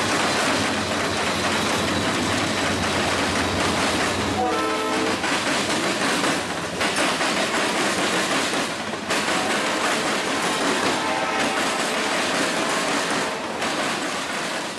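Norfolk Southern freight train passing close by: a diesel locomotive goes by, followed by covered hopper cars, with a steady, loud rumble and clatter of steel wheels on the rails. A brief pitched tone sounds about four and a half seconds in.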